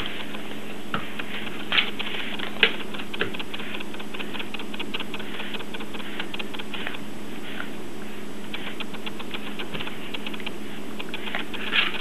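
English bulldog puppy chewing asparagus: runs of quick, wet clicking smacks of her mouth, with a few louder smacks in between.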